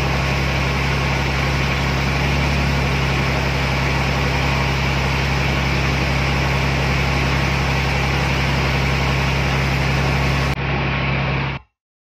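Boat engine running steadily under way: a low, even hum with a hiss of rushing water and wind over it. It cuts off abruptly just before the end.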